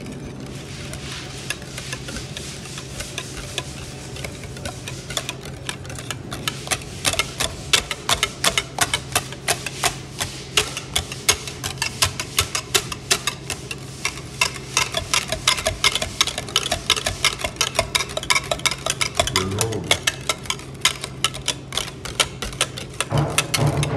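A utensil clicking quickly and repeatedly against a bowl while mixing, faint at first and louder from about six seconds in, over a steady low hum.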